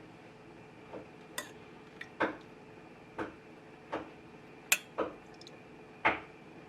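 A spoon tapping against a dish in light, uneven clicks about once a second, as sugar syrup is mixed or spooned out.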